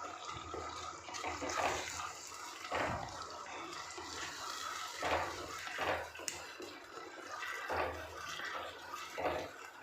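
Onion-tomato masala sizzling in oil in a clay pot while it is stirred, with a few irregular louder spoon-and-pot strokes. The tomato is cooking down until the oil separates.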